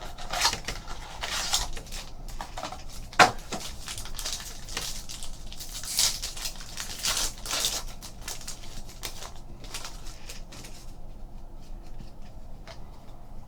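Trading-card packaging and cards being handled and opened: a run of short crinkles, taps and scrapes, thinning out near the end.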